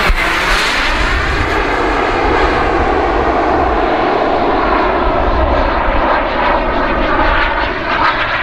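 Radio-controlled model airplane engine running steadily in flight as the model flies by overhead, its pitch shifting as it passes.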